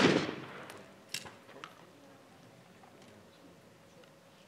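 Echo of a shotgun shot dying away over about a second, followed by a few faint sharp clicks.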